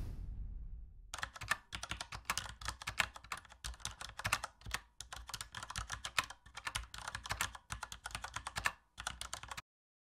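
Computer keyboard typing sound effect: rapid, uneven key clicks with a couple of brief pauses, stopping suddenly shortly before the end. A low rumble fades out during the first second, before the typing starts.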